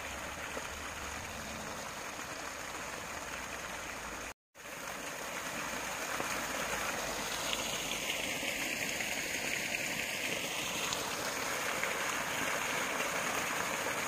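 Small rocky brook running and splashing over stones: a steady rushing that briefly cuts out about four seconds in and comes back a little louder.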